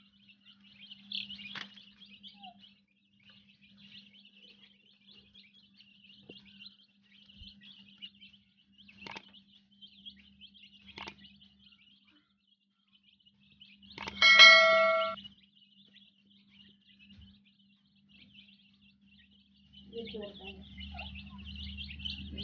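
Newly hatched chicks peeping continuously and softly, with a few faint clicks. About two-thirds of the way through, a loud bell-like ringing tone sounds once for about a second, and a low steady hum runs underneath.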